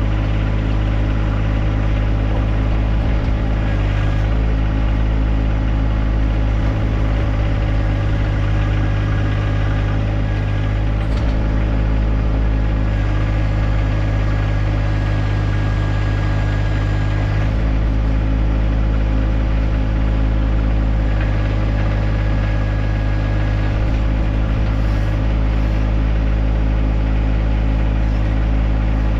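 John Deere 1025R compact tractor's three-cylinder diesel engine running steadily. Its note shifts slightly about four seconds in and again past the halfway point.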